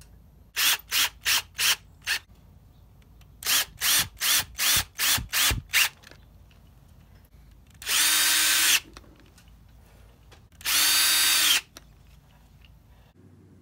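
Power drill triggered in short bursts, about five and then about seven quick pulses, then run steadily twice for about a second each with an even motor whine.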